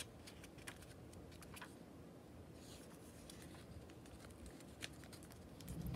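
Quiet room tone with a few soft clicks and light rustles as a board book's pages are handled and turned.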